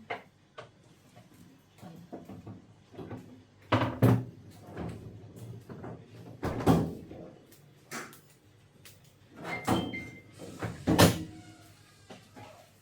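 Irregular knocks and clanks of washing machine parts being handled while its suspension springs are replaced, the loudest about four, six and a half, ten and eleven seconds in.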